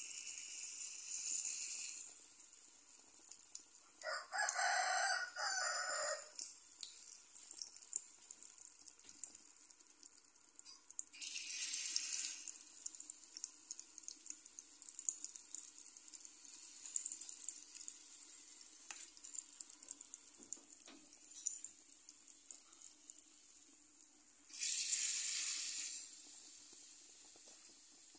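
Banana fritters in batter frying in hot oil: a steady sizzle with light crackling, and louder surges of sizzle as fresh spoonfuls of batter drop into the oil, near the start, about halfway through and near the end. A louder, lower sound lasts about two seconds, beginning about four seconds in.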